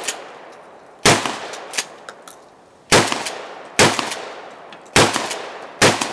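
Five gunshots fired one at a time, spaced roughly one to two seconds apart, each sharp crack trailing off in a fading echo.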